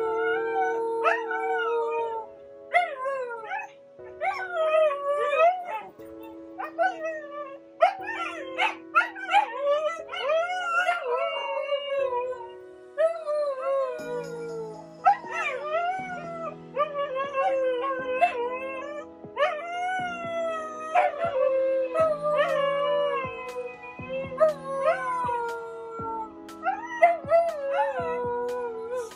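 Siberian huskies howling, whining and yipping in excitement, in many rising and falling calls one after another, over background music with sustained chords.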